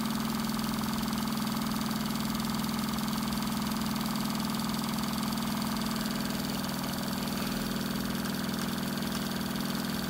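Homemade walking-beam Stirling engine and the small alternator it drives, running steadily at speed with an even mechanical hum while under load charging a power bank.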